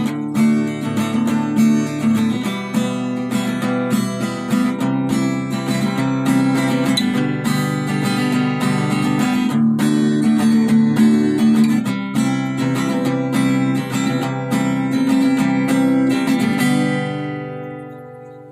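Intro music: a strummed acoustic guitar playing chords, fading out in the last couple of seconds.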